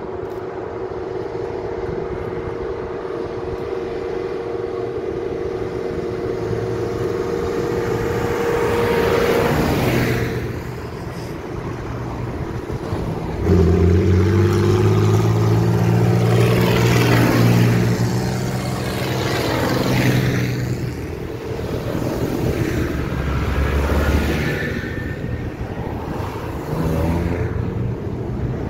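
A convoy of farm tractors driving past, their diesel engines running loud and close with tyre noise on tarmac. A steady engine hum comes first, then about halfway through a much louder engine sets in suddenly and several tractors go by one after another, rising and fading as each passes.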